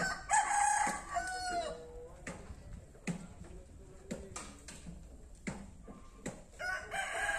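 A rooster crowing: one long crow falling in pitch near the start, and another crow starting near the end. A few sharp knocks sound in between.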